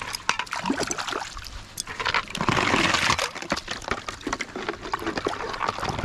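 Water sloshing and splashing as a basket of freshly gathered shellfish is shaken and rinsed to wash out the sand, with the shells clicking against each other. The sloshing is loudest and densest for about a second, starting roughly two and a half seconds in.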